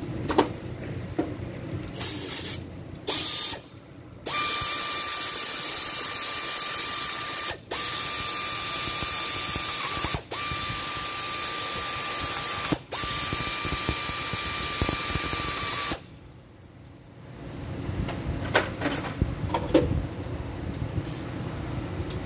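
Pneumatic air ratchet running with a steady hiss and whine, undoing the automatic transmission oil pan bolts. Two short bursts come first, then one long run that stops briefly three times. Small metallic clicks follow near the end.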